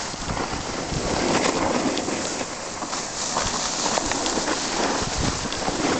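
Steady scraping hiss of snow under a rider sliding down a groomed slope, broken by many small crackles and crunches as the edges cut the packed snow.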